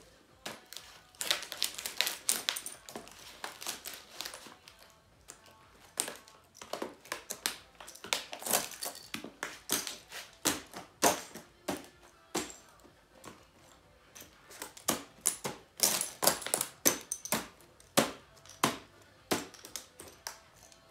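High heels treading on a laptop's keyboard: irregular sharp clicks, cracks and creaks of plastic keys and casing giving under the weight, often in quick clusters.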